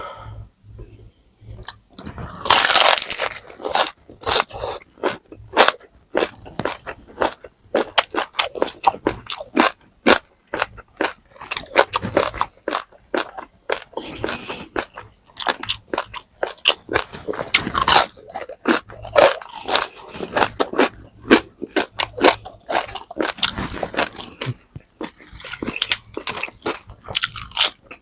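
Close-miked biting and chewing of crispy pata, deep-fried pork knuckle, its hard skin crunching and crackling in quick irregular bites. The loudest crunching comes about three seconds in.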